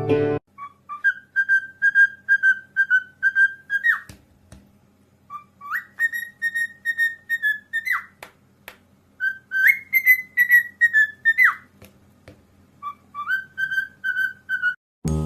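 Whistling: four short phrases of repeated high notes, about three a second, each phrase ending with a quick glide, with pauses between the phrases.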